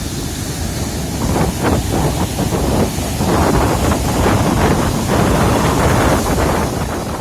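Strong wind buffeting the microphone over waves breaking on the shore.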